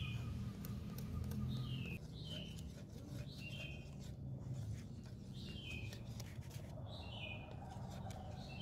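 A small bird chirping, short falling notes repeated about once a second, over faint light clicks of a wire whisk against a glass bowl.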